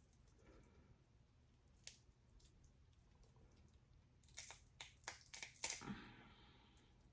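Close-up eating sounds from crawfish being eaten: a single click about two seconds in, then a quick run of wet mouth smacks and shell clicks between about four and six seconds in. Otherwise near silence.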